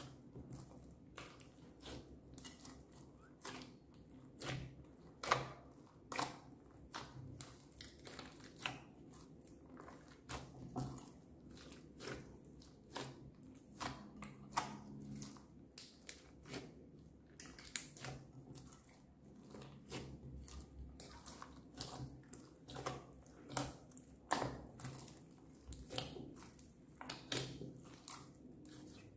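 Hands kneading, folding and pressing a large mass of glossy slime studded with small foam beads, giving irregular sticky pops, crackles and squelches, about one to two a second.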